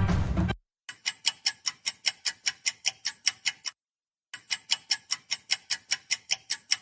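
Music cuts off, then a clock ticks fast, about five or six sharp ticks a second, in two runs of about three seconds each with a short pause between.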